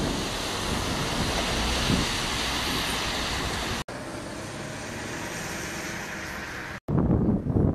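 Double-decker bus driving past, a steady rush of engine and tyre noise. It cuts off abruptly about four seconds in, giving way to a quieter steady hiss, then wind buffeting the microphone near the end.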